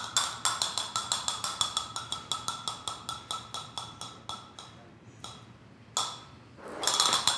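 Flamenco castanets clicking in a quick, even rhythm of about six clicks a second. The rhythm slows and fades about four seconds in, leaving a few single clicks, then breaks into a fast, dense roll near the end.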